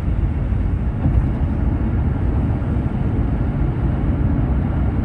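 Steady low rumble of road and wind noise inside a moving car, with no voices over it.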